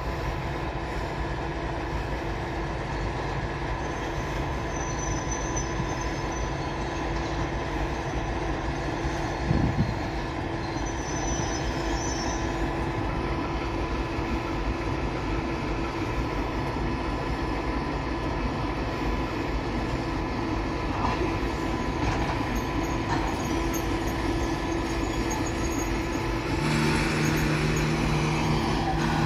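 ChME3 shunting diesel locomotive's six-cylinder engine running steadily as it slowly hauls a string of three electric locomotives, with the rumble of their wheels on the rails and a faint high wheel squeal a couple of times. There is a single thump about ten seconds in. Near the end a deeper steady engine hum comes in and the sound grows louder.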